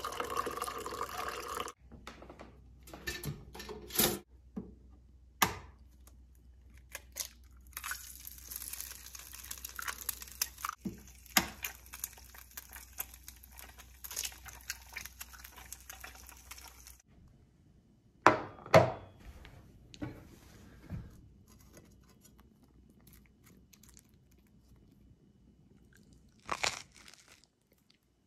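Coffee pouring from a carafe into a mug, stopping about two seconds in. Later, a steady sizzle of eggs frying in a pan for about ten seconds, with a few sharp cracks as an egg is broken into it, then two loud knocks and, near the end, a short crunch of a bite of toast.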